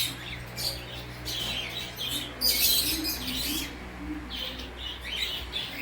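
Pet cockatiel chirping: a run of short, high chirps, loudest and busiest between about two and a half and three and a half seconds in.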